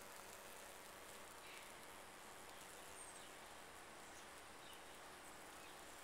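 Near silence: faint outdoor background hiss with a few faint short chirps scattered through it.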